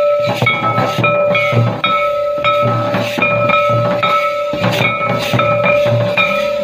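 Santali tamak' kettle drums and tumdak' barrel drums beaten with sticks and hands in a fast, even dance rhythm, with deep thuds about twice a second. A steady held tone sounds above the drums.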